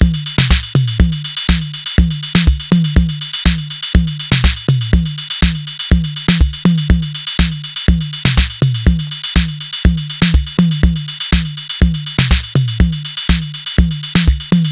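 Background electronic dance music with a steady drum-machine beat.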